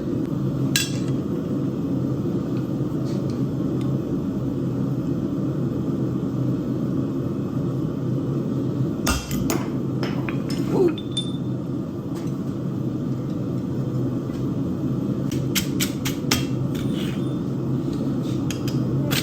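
Blacksmith's hammer striking steel on an anvil: a few single blows, then quick runs of light taps in the last few seconds, over a steady low hum.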